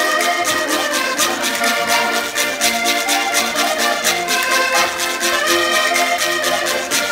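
Several diatonic button accordions (concertinas) playing a lively traditional folk tune together in unison, with a steady rhythm and a stringed instrument accompanying.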